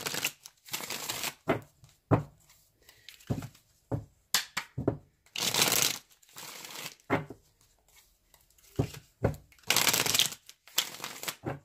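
A deck of tarot cards being shuffled by hand: irregular bursts of rustling and a few sharp card snaps, with short pauses between.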